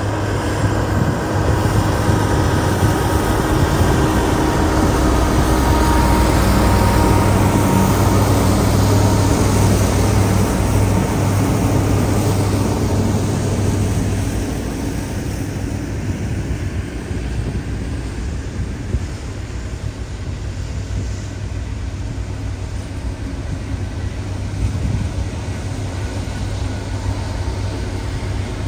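A long consist of diesel-electric freight locomotives passing close by. The engines give a deep, steady hum, loudest in the first half. About halfway through it drops to a quieter rumble of wheels on the rails as the trailing units go by.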